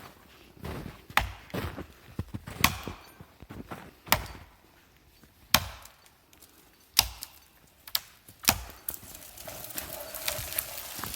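An axe chopping wood: six sharp blows about a second and a half apart, with lighter knocks between them. Near the end a steady hiss rises.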